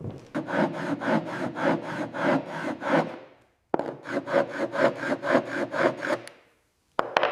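Rhythmic back-and-forth rubbing strokes on wood, like hand sanding, about four strokes a second. They come in two runs of about three seconds with a short pause between, followed by a couple of sharp knocks near the end.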